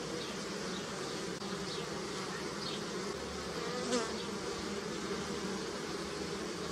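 Honey bees buzzing steadily around flowering willow, a continuous hum of many wingbeats. About four seconds in there is a brief louder buzz.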